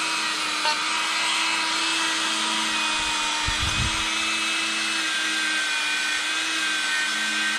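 Dremel rotary tool running steadily with a stainless steel bristle wheel, wire-brushing a chainsaw cylinder to clear off melted plastic where the crank seal will sit; a steady whine over the hiss of the bristles on the metal.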